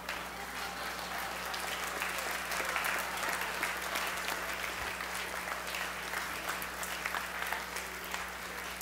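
Audience applauding while a tumbling-wing paper glider is flown. The clapping builds over the first couple of seconds, then eases off a little toward the end.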